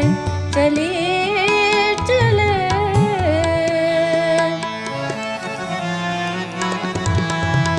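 Ghazal music in the Hindustani light-classical style: a melodic line with gliding ornaments for about three seconds, settling on a held note, over tabla. Tabla strokes and steady instrumental backing carry on to the end.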